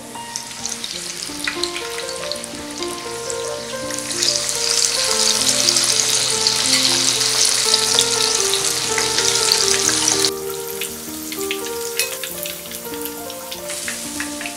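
Marinated rohu fish pieces deep-frying in hot oil, a steady sizzle and bubbling. It grows loud about four seconds in as more pieces go into the oil, then cuts off suddenly about ten seconds in.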